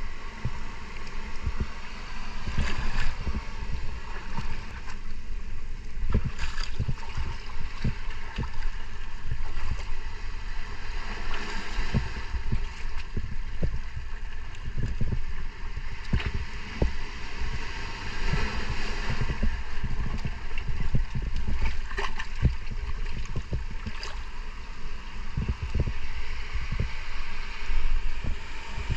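Muffled rush and gurgle of seawater around a camera held in the water, with a constant low rumble and many small knocks and crackles.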